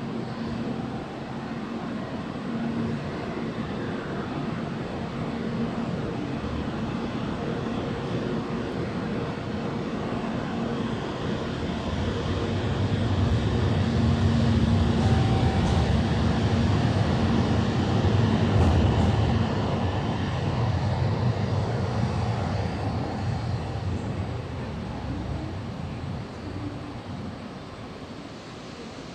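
Station escalator running with a faint steady hum under the hall's noise; about halfway through, a deep low rumble swells, holds for several seconds, then fades away.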